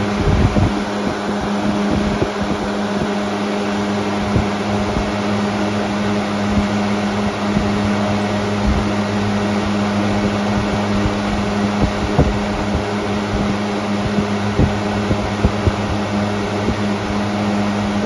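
Air King 20-inch box fan (model 9723) running on high speed: a steady rush of air over a constant motor hum, with scattered brief low thumps.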